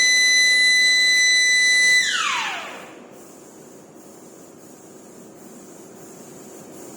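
Electric drive motor of a tilting melting furnace whining steadily at high pitch, then winding down, falling in pitch and fading about two seconds in as one tilt step ends. A low steady hum follows, and near the end the whine winds up again as the next step starts.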